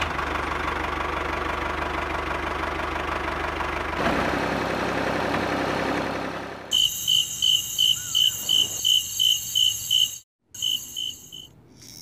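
Small geared electric motor of a miniature DIY model tractor whirring steadily as it tows a loaded trolley. About seven seconds in it gives way to a fast, even, high chirping, about four chirps a second, that breaks off briefly and resumes.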